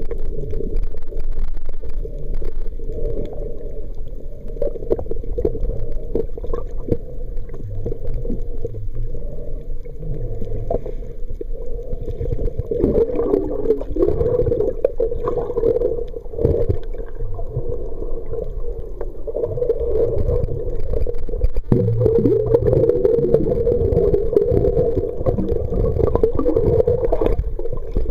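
Muffled underwater sound picked up by a camera in a waterproof housing: a steady wavering drone over a low rumble, with scattered clicks and knocks.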